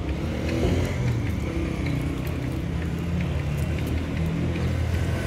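Steady low engine rumble, like a vehicle idling, with a few faint light clinks.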